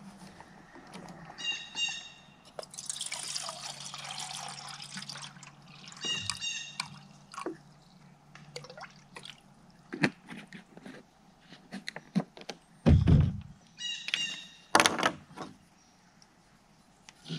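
Water poured into a small metal camp pot for a couple of seconds, amid metallic clinks and brief ringing of the pot and its handles, with a heavy thump about thirteen seconds in.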